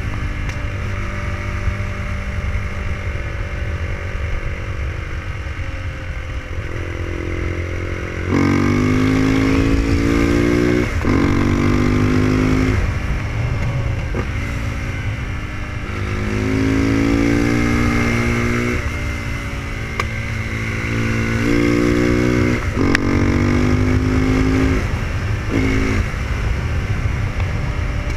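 Onboard sound of a KTM 690 SMC's single-cylinder engine while riding, under steady wind noise on the microphone. The engine note rises and falls again and again with the throttle and gear changes, and gets noticeably louder about eight seconds in as the throttle is opened.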